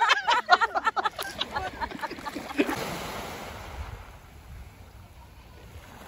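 Women laughing and chattering for the first two and a half seconds, then a soft, steady wash of small waves on a pebble shore.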